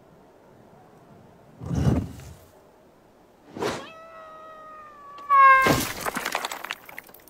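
Cartoon sound effects: a low thud, a quick whoosh, then a long, held, pitched cry that ends in a louder yelp falling in pitch, followed at once by a noisy crashing clatter.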